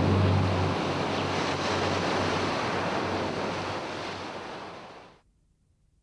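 Sea surf washing in a steady rush of noise that fades away and drops to silence about five seconds in.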